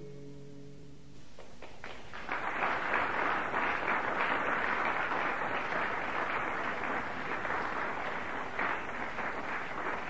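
Guitar music ends in the first second. Then a steady, dense noise without pitch rises about two seconds in and holds.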